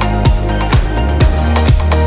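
Background music with a steady drum beat about twice a second over a deep, sustained bass.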